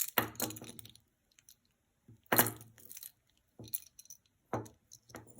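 Costume jewelry being handled and sorted by hand: small metal and glass pieces clinking and rattling in several short bursts, the loudest about two seconds in.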